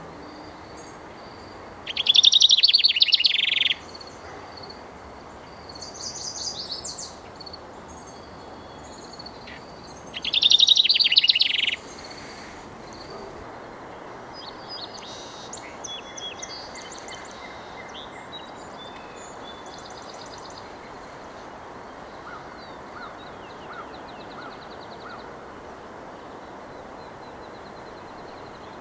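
House wren singing: two loud rapid trilled songs, each under two seconds and about eight seconds apart, with fainter bird calls in between and afterwards over a steady background hiss.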